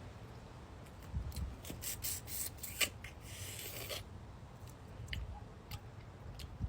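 Boiled crawfish shells being cracked and peeled by hand: a run of crisp crackles and clicks, with a short rasping rustle about three seconds in.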